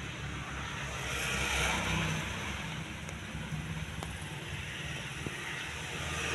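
Isuzu Panther's diesel engine idling steadily, heard from inside the cabin.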